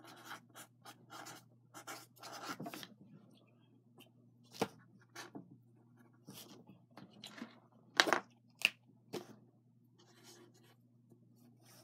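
Handwriting on paper: short irregular pen strokes with pauses between them, the loudest a couple of sharp strokes about eight seconds in.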